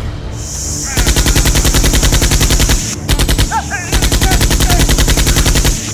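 Dubbed automatic machine-gun fire sound effect, rapid evenly spaced shots at roughly ten a second. It comes in three bursts starting about a second in: a long one, a short one after a brief break, then another long one.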